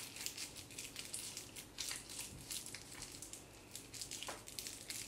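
Plastic piping bag crinkling as its filled end is twisted shut and tied in a knot by hand: a run of faint, soft crackles.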